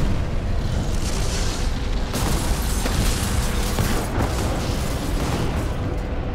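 Film sound effects of a spaceship exploding and breaking up: a dense, continuous explosion rumble, with a sharper blast about two seconds in.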